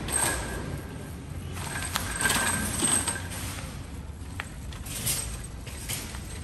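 Loaded wire shopping cart rattling and clattering as it is rolled over pavement, with scattered light clicks.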